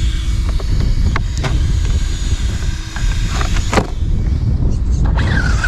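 Strong wind buffeting the microphone: a loud, steady low rumble, with a few short knocks.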